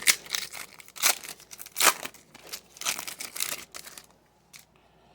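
Foil wrapper of a trading card pack crinkling and tearing as it is opened by hand, a quick run of crackles that stops about four seconds in.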